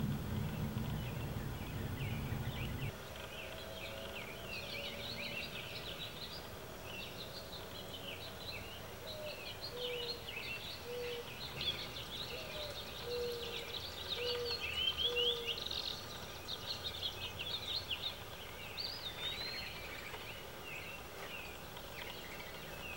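Many small songbirds chirping and chattering at once in dense, overlapping high calls. A low rumble comes first and stops about three seconds in.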